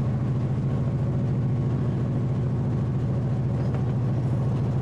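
Diesel train engine running steadily under way, a low even drone with a fast pulsing beat.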